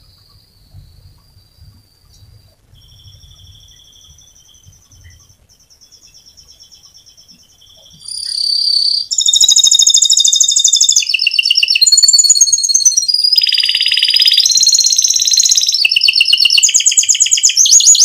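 Domestic canary singing: faint, thin high notes at first, then about eight seconds in loud, fast rolling trills and chirps follow one another in quick phrases.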